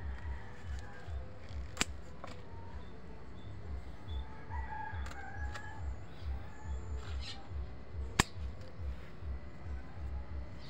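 Sharp clicks of pruning scissors snipping, the loudest about two seconds in and again near eight seconds, over a low rumbling noise. A rooster crows faintly in the background around the middle.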